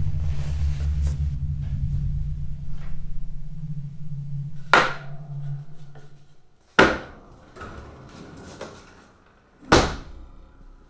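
A low, steady drone that fades away about six seconds in, and three heavy bangs, the first about five seconds in and the others two and three seconds apart, each with a short ringing tail.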